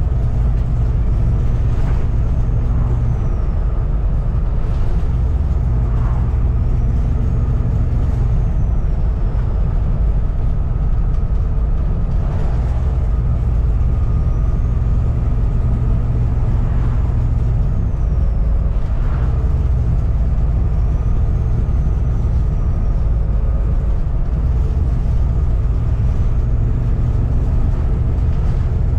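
Volvo B7TL double-decker bus's turbocharged diesel engine running under way, with the turbo whistle rising and falling about five times as the engine goes on and off load. Short rattles and knocks from the bus body come through over the steady engine drone.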